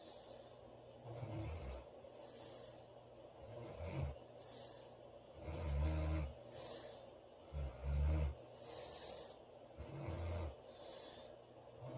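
A woman snoring loudly in her sleep: five low, rough snores about every two seconds, each followed by a short hissing breath.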